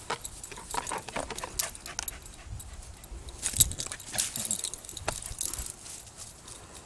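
Australian cattle dog playing fetch with a plastic flying disc: scattered clicks, knocks and rustling as the disc is brought back, taken and thrown, the sharpest knock about halfway through, with a few brief dog whines.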